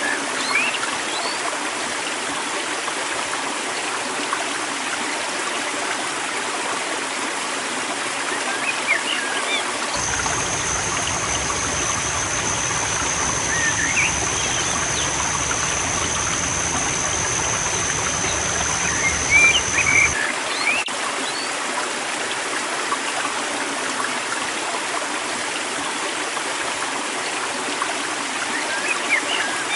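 River water flowing steadily, with small birds chirping now and then. About a third of the way in a steady high whine and a low hum come in together and cut off about ten seconds later.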